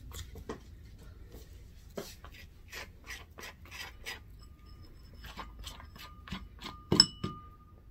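Metal spoon scraping aloe vera gel out of a cut leaf in many short, irregular strokes. Near the end the spoon knocks a few times against a ceramic bowl, with ringing clinks, the loudest two close together.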